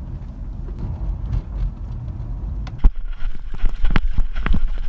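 Steady low road rumble inside a moving car's cabin. About three seconds in it cuts to a mountain bike riding a muddy, rough dirt trail, with many quick knocks and rattles from the bike over the ground.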